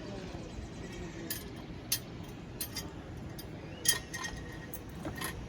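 A few light metallic clinks and taps, a couple of seconds apart, over a steady background hiss.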